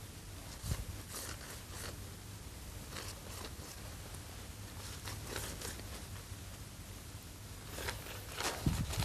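Silicone pastry brush dabbing oil over rolled filo pastry in a metal baking tray: faint crinkling of the dry pastry sheets and light taps of the brush, with a low thump near the end.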